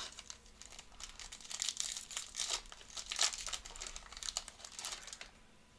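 Foil wrappers of trading-card packs crinkling and tearing as they are ripped open and handled, in quick irregular crackles from about a second in until near the end.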